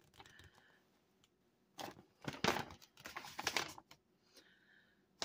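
Folded paper instruction leaflet rustling and crinkling as it is handled and unfolded, a cluster of short crackles starting about two seconds in and lasting about two seconds.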